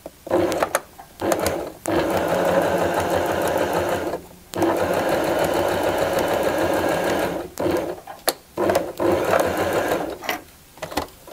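Household electric sewing machine stitching a seam. Two or three short bursts at the start as the seam is backtacked, then a long steady run with a brief pause about four seconds in. Short bursts again towards the end for the closing backtack.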